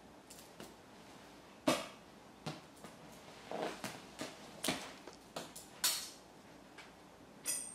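A cat rolling over and scrambling up on a sofa: about ten short scuffs and knocks of paws and claws on the upholstery, the loudest about two seconds in.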